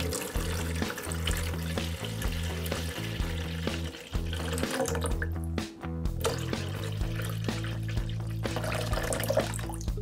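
Water pouring from a glass jug and splashing onto a bed of water-absorbing gel beads in a plastic tub, breaking off briefly a little past halfway, over background music with a steady bass line.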